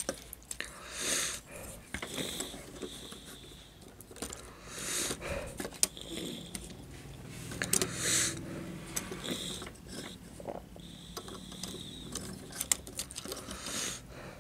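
Plastic Transformers Studio Series Ratchet Deluxe action figure being handled and posed: a string of small clicks from its joints as the legs are bent and straightened, with bursts of fingers rubbing and rustling on the plastic.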